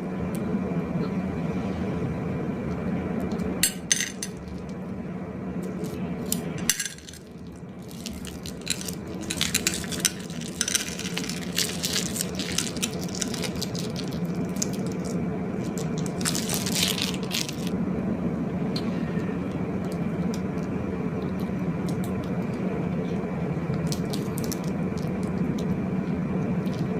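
Handling of slime-making containers and utensils: scattered clicks, clinks and crackles, busiest in the first half, over a steady low hum.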